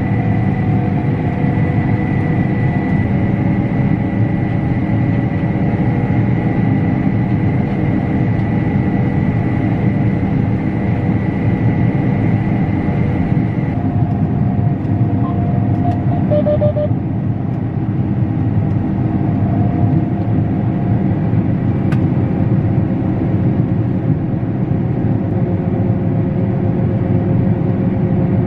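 Combine harvester running steadily under load through muddy wheat, heard from inside the cab. A steady high tone sounds over the machine noise and stops about halfway through, and a short run of quick beeps follows soon after.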